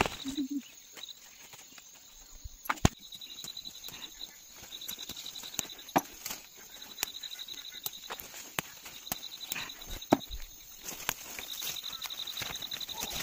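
Green bean pods snapped off tall pole-bean vines by hand: scattered sharp snaps with leaf rustling. An insect trills high in repeated short bursts behind it.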